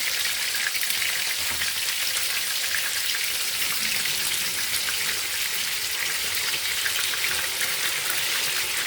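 Egg-and-breadcrumb-coated dormer sausages frying in hot fat in a pan: a steady sizzle full of small crackles and spits.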